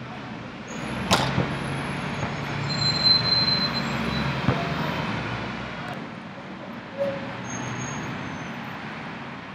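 Road traffic rumbling past, swelling and fading in the middle. Three sharp thuds of a basketball bouncing are heard about a second in, near halfway and about seven seconds in.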